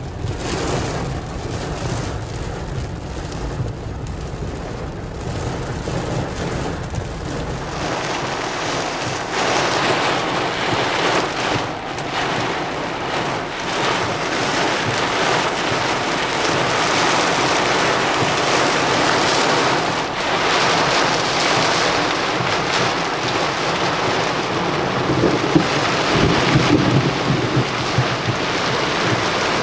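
Heavy thunderstorm rain falling steadily with thunder. The rain grows louder and hissier about eight seconds in, and low rumbles of thunder swell near the end.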